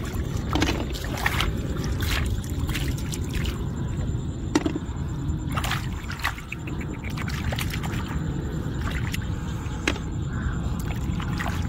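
Hands digging through wet mud in shallow water for mud clams: splashing and sloshing of muddy water, with scattered sharp clicks and knocks, over a steady low rumble.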